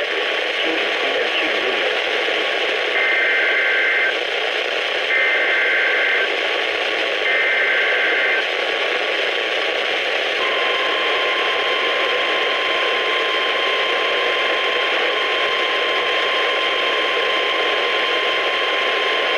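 Weather radio broadcast under heavy static hiss. It carries three short bursts of two-tone warbling data, the SAME header of an emergency alert, and then, about ten seconds in, the steady 1050 Hz NOAA Weather Radio alert tone starts and holds.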